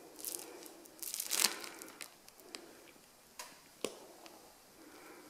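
Disposable plastic piping bag crinkling and rustling in the hands as it is squeezed to pipe marshmallow, loudest about a second in, with a few sharp crackles after.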